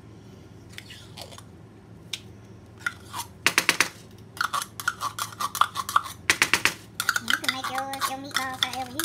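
A small metal can of tomato paste handled over a plastic mixing bowl as the paste is worked out, giving two short runs of rapid clattering taps, about three and a half and six seconds in. A voice talks in the background.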